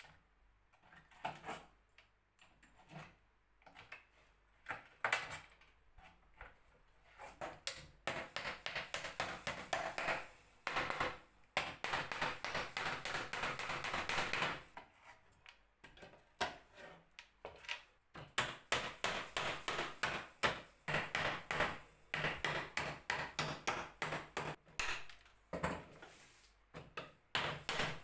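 A hand tool working on wood in quick repeated strokes, several a second, in runs with pauses between them. The longest runs come about a third of the way in and again past the middle.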